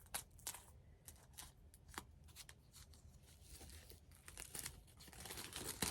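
A music album's packaging being handled and unwrapped: faint scattered clicks and taps, then rustling plastic or paper wrapping that grows denser near the end.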